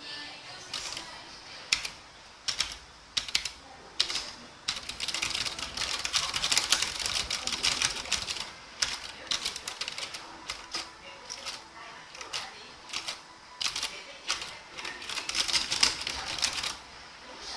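Keys of an Obins Anne Pro 60% mechanical keyboard with Gateron switches being typed on: scattered single keystrokes, then rapid runs of typing about five seconds in and again near the end.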